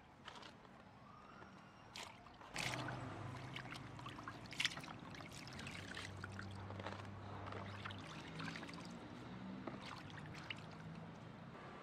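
Hands washing raw shrimp in a plastic basin of water: splashing and dripping as the shrimp are rubbed and lifted out, with a sharp click about four and a half seconds in. A low steady hum comes in about two and a half seconds in.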